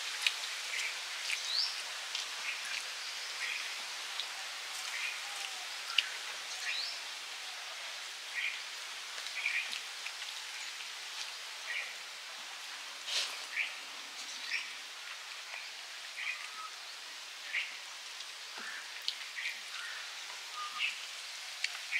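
Steady outdoor hiss with short, high bird chirps repeating every second or so.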